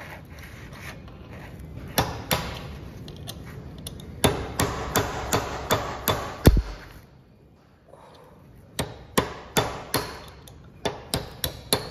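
Hammer striking a steel punch to knock broken bearing rollers out of a destroyed king pin bearing in a Toyota forklift steering knuckle: two sharp metallic strikes, then quick runs of about three blows a second. One heavier dull thump about six and a half seconds in, followed by a short pause before the blows resume.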